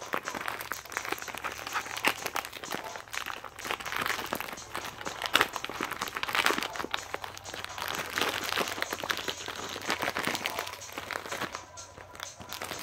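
Close-up crinkling and rustling handling noise, broken by many small sharp clicks.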